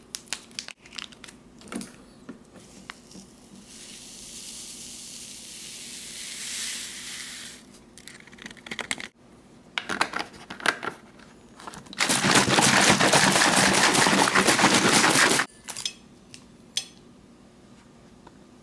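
Plastic drink-mix packet crinkling and tearing, then powdered lemon-lime drink mix poured into a plastic bottle of water as a smooth hiss lasting a few seconds. Near the end the bottle is shaken hard for about three and a half seconds to dissolve the mix, the loudest sound, stopping abruptly.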